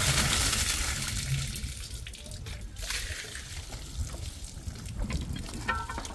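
Water pouring out from underneath a fire engine and splashing onto the road, the sign that the tank is full and overflowing. It is loudest in the first second or so and dies down after about two seconds.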